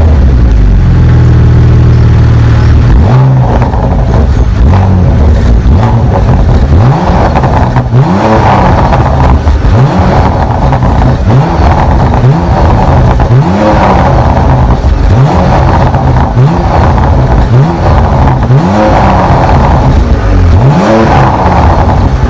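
Porsche Macan Turbo's 3.6-litre twin-turbo V6 exhaust, running steadily at first, then blipped in about a dozen short revs roughly a second apart from about three seconds in. Between the revs the exhaust crackles and pops on the overrun.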